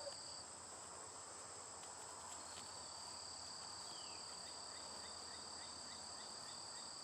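Faint, steady, high-pitched insect chirring: two continuous tones, one dropping out for about two seconds near the start. A row of soft, evenly spaced ticks sounds in the middle.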